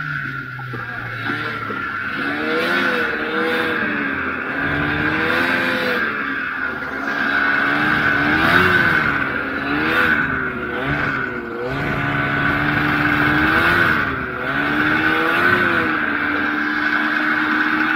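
Ski-Doo Formula Z snowmobile's two-stroke engine running through deep powder, its pitch rising and falling again and again as the throttle is worked, over a steady high whine.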